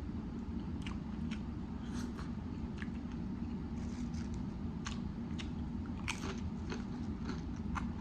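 Close-miked biting and chewing of a grinder sandwich loaded with chopped salad, with irregular small crunches and wet clicks of the mouth. A steady low hum runs underneath.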